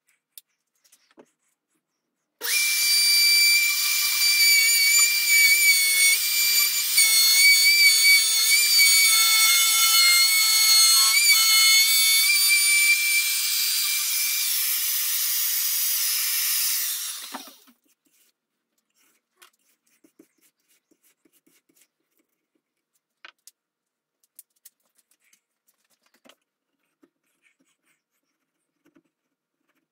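Handheld electric router cutting a barrel groove along a wooden rifle-stock blank. It starts about two seconds in, runs with a steady high whine for about fifteen seconds, then shuts off. Only a few faint clicks and scrapes follow.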